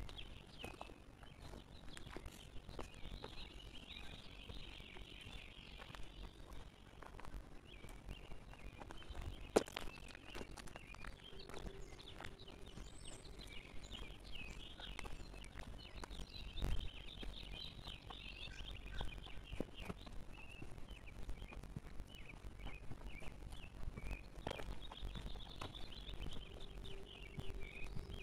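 Birds chirping and chattering almost without a break, over a faint low rumble, with a couple of sharp knocks about ten and seventeen seconds in.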